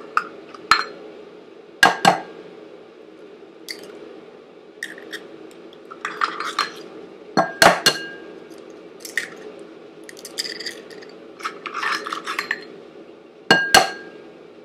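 Raw eggs tapped one after another on the rim of a porcelain bowl: sharp cracks, often two in quick succession, each leaving a brief ring from the bowl. Between the taps come softer rustling sounds as the shells are pulled apart and the eggs drop in.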